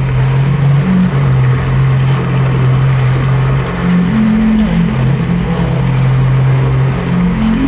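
Electronic soundtrack drone: a loud, steady low hum under a rough, hissing layer, with a higher tone that comes in and shifts pitch a few times.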